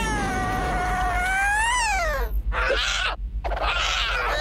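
Cartoon cat yowling: a long wavering wail that rises and falls in pitch, then two harsh noisy bursts and another falling wail near the end, over a steady low rumble.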